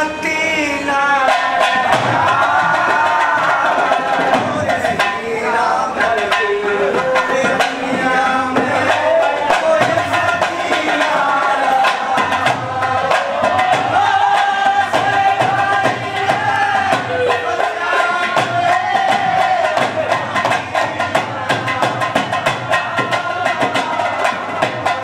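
Harmonium playing a wavering folk melody over a fast, steady dholak beat.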